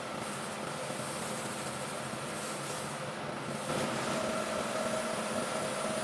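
Wood lathe running steadily with a spinning vase, with a faint steady whine over a motor hum. About three and a half seconds in, a rag is pressed onto the turning wood and a louder rubbing hiss joins in.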